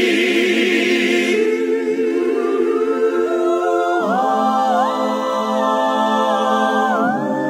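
Background music: slow wordless singing, long held notes with vibrato over a sustained chord that changes about four seconds in.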